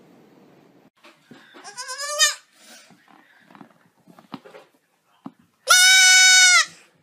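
A goat bleating twice: a short wavering bleat about two seconds in, then a much louder, long bleat held at a steady pitch near the end. Faint knocks and rustles come between them.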